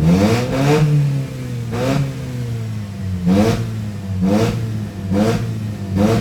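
Mercedes-Benz W204 C250 revved in a series of short throttle blips over a steady idle, each blip rising and falling quickly. It is heard through its FastFun valvetronic exhaust with the valves open in racing mode.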